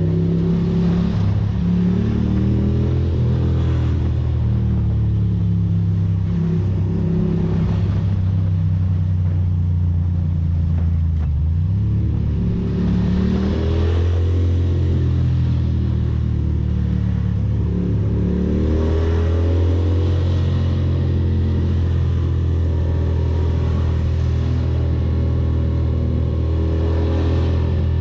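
Ducati Monster's V-twin engine running under way, its pitch rising and dropping several times as it accelerates and eases off, with rushing wind.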